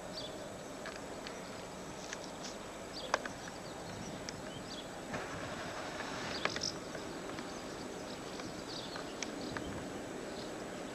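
Faint steady rumble of a distant diesel locomotive approaching along the line, with small birds chirping now and then and two sharp clicks, about three seconds in and again around six and a half seconds.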